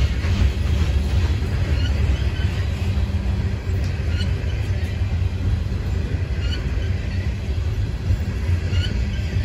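Freight train of CSX open-top hopper cars rolling past, a steady low rumble of steel wheels on the rails.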